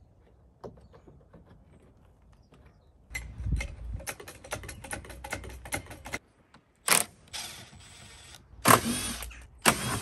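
Rattling, clicks and scuffs of hands-on work at a car's plastic front bumper cover as it is tugged free, with a few louder knocks and scrapes in the last few seconds.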